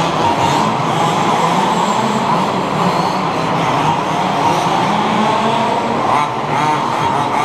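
Several 1/5-scale HPI Baja RC buggies racing, their small two-stroke petrol engines buzzing together with overlapping pitches; one engine's pitch wavers up and down about six seconds in.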